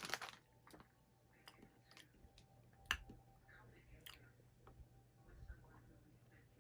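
Faint chewing of small crunchy savory snack balls, with scattered crackles and small clicks and one sharper click about three seconds in.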